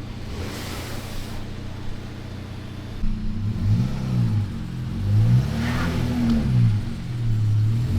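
Car engine running steadily, then from about three seconds in revving up and down in several repeated surges as the car, stuck in deep snow, fails to get traction.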